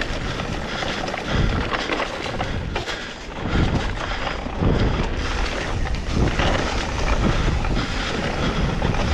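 Mountain bike riding down dry, loose singletrack: tyres rolling and sliding on the dirt, with wind buffeting the microphone in irregular low gusts.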